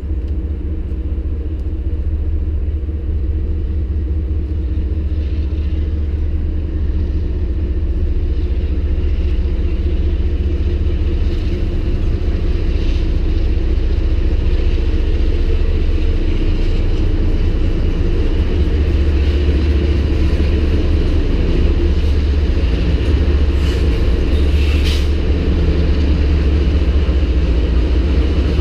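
Diesel-electric freight locomotives running, a low steady rumble with an engine drone that grows slowly louder as the train approaches.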